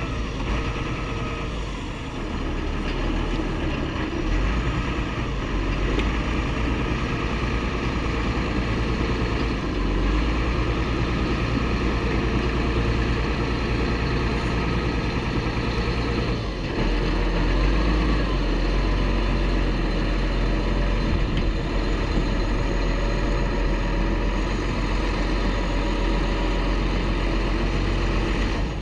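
Heavy diesel engines of construction machinery running steadily, a deep rumble that swells a little now and then.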